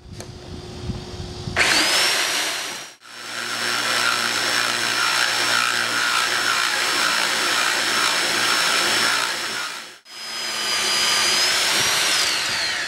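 AGP TC402 two-speed tile core drill, running in second gear with a 20 mm diamond core bit, drilling wet into ceramic tile. The motor starts with a rising whine and stops after about a second. It then runs steadily for several seconds while the bit grinds into the tile, cuts out briefly, and runs again before winding down with a falling whine near the end.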